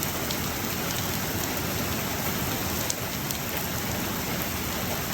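Heavy rain pouring steadily during a severe thunderstorm, with a few faint drop ticks.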